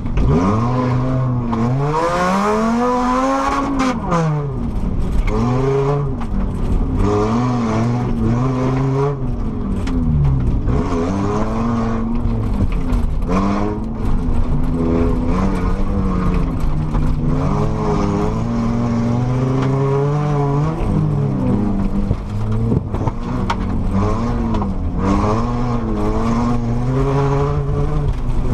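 Volvo car's engine heard from inside the cabin, driven hard, its pitch rising and falling again and again with throttle and gear changes, with scattered short knocks and rattles.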